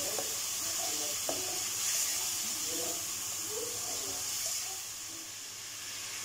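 Chicken pieces sizzling in masala in a wok as a spatula stirs them, with a couple of spatula clicks against the pan early on. The sizzle drops about four and a half seconds in.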